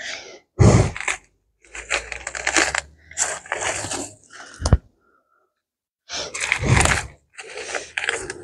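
Irregular rustling and crunching as weeds and soil are pulled from a raised bed and dropped into a plastic bucket, with one sharp knock a little past halfway.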